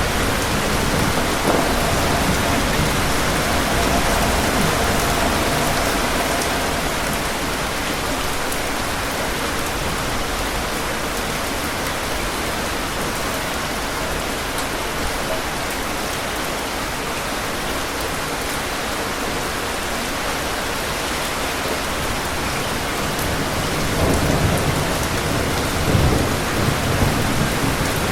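Steady rain in a thunderstorm, with rolling thunder rumbling low in the first few seconds and again near the end, the later roll with sharper cracks.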